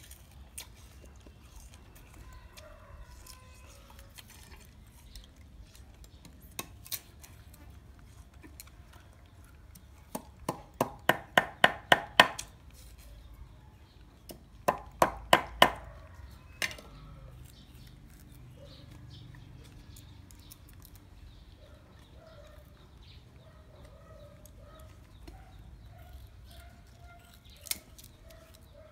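Large kitchen knife chopping sugarcane against a wooden chopping block: a quick run of about eight sharp strikes, then a shorter run of about five, with a few single knocks around them.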